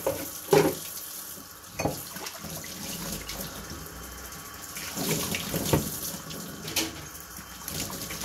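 Tap water running into a kitchen sink, with several sharp clattering knocks, the loudest at the very start and about half a second in, and more about five to seven seconds in.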